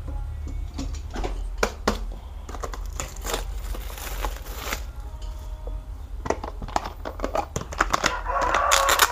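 Plastic being handled: scattered light clicks and crinkling, growing into a louder, denser crinkle near the end, over a steady low hum.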